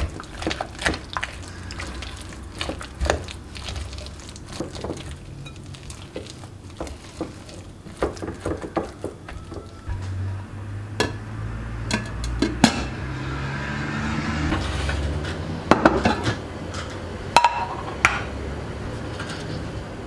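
Silicone spatula stirring mashed potato in a glass mixing bowl, with irregular clinks and knocks of the spatula against the glass.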